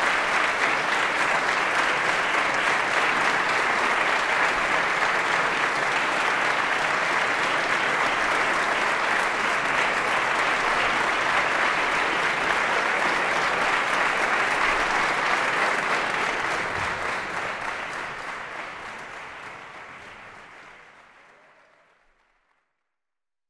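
Concert hall audience applauding, a dense steady clapping that fades out over the last several seconds.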